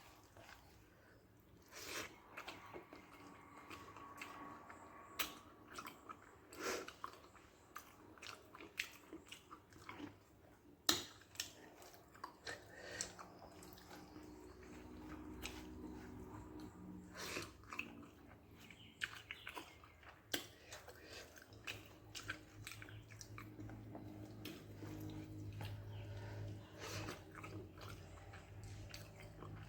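A person chewing and eating soft rice with brinjal and okra in gravy, with irregular wet mouth clicks and smacks close to the microphone.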